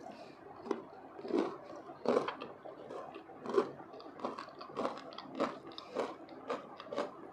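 Close-miked chewing of crispy fried potatoes: a run of short, irregular crunches, about two a second.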